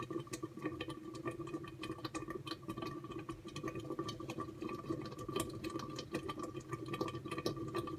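Thick tomato-and-pepper sauce (lutenitsa) bubbling in a pot covered with a glass lid, with many irregular small pops and clicks over a steady hum.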